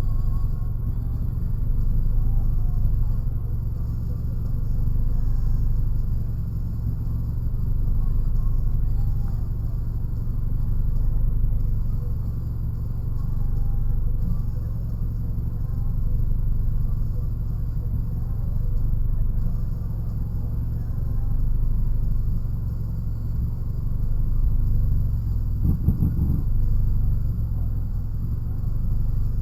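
Low, steady rumble of a running vehicle engine, swelling and easing gently, with one brief knock near the end.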